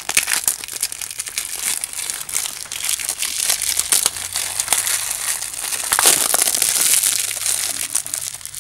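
Plastic shrink-wrap being peeled and crumpled off a plastic Blu-ray case: dense, continuous crinkling and crackling, loudest about six to seven seconds in.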